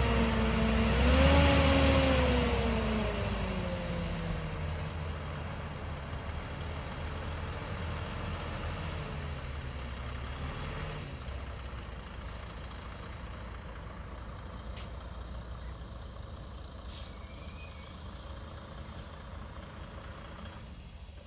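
Heavy diesel lorry engine pulling away: its note lifts briefly about a second in, then falls in pitch and fades steadily as the lorry moves off, leaving a low rumble with a few faint clicks near the end.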